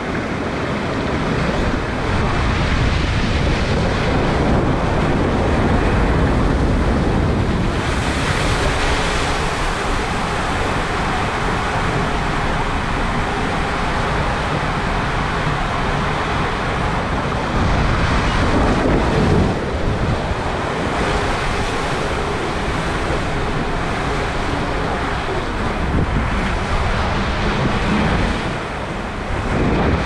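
A raft tube rushing down a WhiteWater West Master Blaster water coaster, with water rushing and splashing around it through enclosed tubes and open flumes. Wind buffets the ride-mounted microphone throughout.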